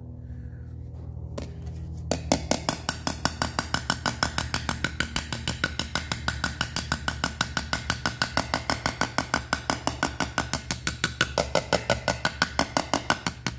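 Small hammer tapping rapidly and evenly on a dented aluminum seat molding from a 1960 Chevrolet Impala, beating the dent out from the back over a small anvil. The light metallic taps start about two seconds in and come several a second, over a steady low hum.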